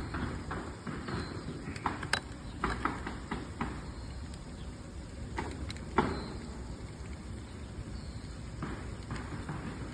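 Scattered clicks and light knocks of handling a fish and gear in a kayak, the loudest about two and six seconds in, over a low steady background.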